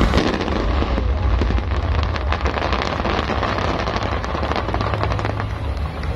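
Fireworks crackling: a dense run of many small pops in quick succession from crackle-effect bursts, thinning out near the end, over a steady low rumble.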